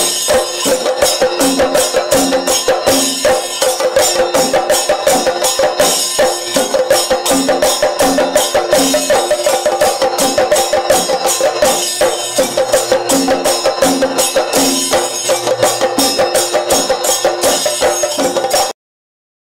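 Chenda melam: a group of Kerala chenda drums beaten rapidly with sticks in a fast, steady rhythm, with the ringing clash of hand cymbals keeping time. The playing stops abruptly near the end.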